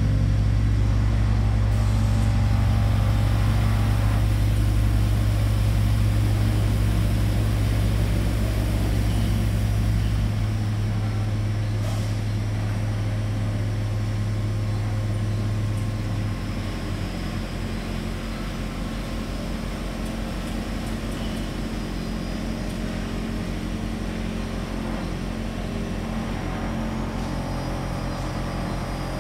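Teksam SPSM1600 manhole machine running with a steady low hum. The deepest part of the hum stops about ten seconds in, and more drops out about sixteen seconds in, leaving a quieter, steady hum.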